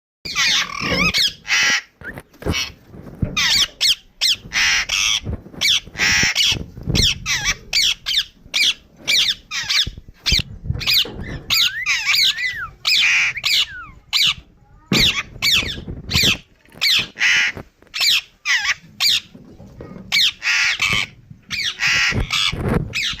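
Indian ringneck parrot calling: a rapid string of short, harsh squawks and chattering calls that bend up and down in pitch, with only brief gaps between them.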